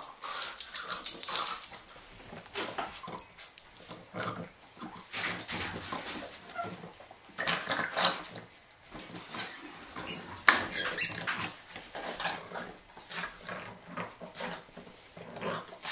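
Boston terriers making noisy, rough play sounds while tugging and wrestling over a toy, in irregular bursts.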